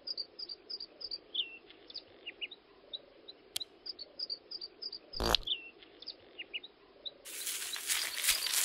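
Small birds chirping, many short, high chirps in quick series. There is a sharp click about three and a half seconds in, a brief louder burst about five seconds in, and a loud, rough rushing noise from about seven seconds in.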